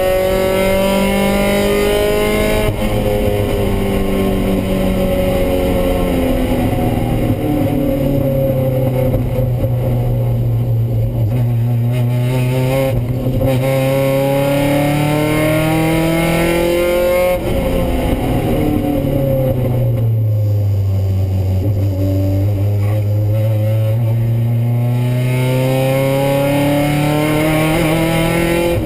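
Mazda Miata race car's four-cylinder engine heard from inside the cabin, climbing in pitch as it accelerates and falling back under braking and downshifts. The pitch drops lowest about seventeen seconds in, then climbs steadily again.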